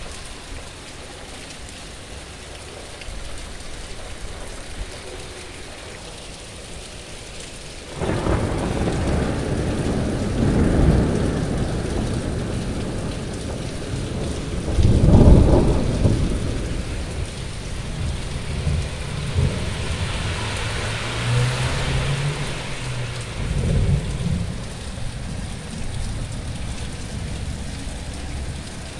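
Steady rain falling, then about eight seconds in a long roll of thunder sets in suddenly and rumbles on for well over ten seconds, loudest about halfway through.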